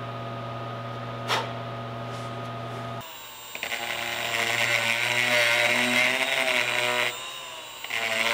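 Milwaukee cordless rotary tool with a small burr bit running at high speed, its whine wavering in pitch. It starts about three seconds in, stops for about a second near the end, then starts again. Before it there is a steady low hum and one click.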